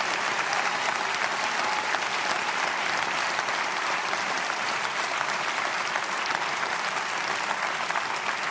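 Church congregation applauding: dense, steady clapping from many hands.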